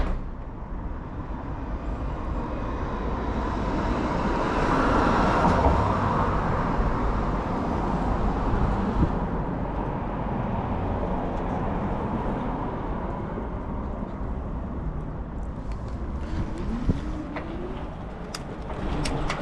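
Road traffic noise, with a vehicle passing close by about five seconds in.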